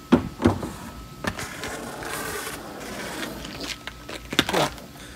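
Heelys wheel-shoes jumping off a wooden bench and landing on a concrete deck: two sharp thumps and scuffs just after the start and another loud one near the end, with the rattle of the small heel wheels rolling on concrete in between.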